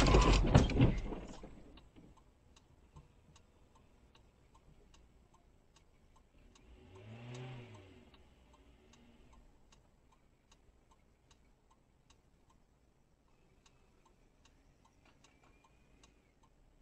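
A loud bang that rattles and dies away over a second or so, then a car's indicator relay ticking steadily about three times a second. A short low vocal sound comes about seven seconds in.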